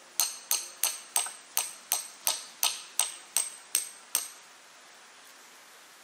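Hammer driving into the stakes that hold 2x6 wooden concrete forms: about a dozen quick, evenly spaced blows, roughly three a second, each with a short metallic ring, stopping about four seconds in.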